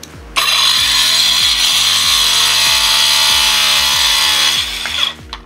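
Akaido AKCS125BL 21 V cordless 5-inch circular saw with a diamond tile blade cutting through 9 mm cement board. The saw starts just after the beginning and runs loud and steady through the cut, then winds down near the end.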